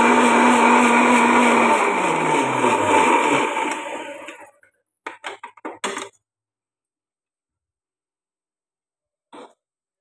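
Electric mixer grinder blending coriander juice, switched off about two seconds in: its motor hum falls in pitch as it spins down and the whirring fades out. A few short clicks and knocks follow about five to six seconds in as the jar is handled.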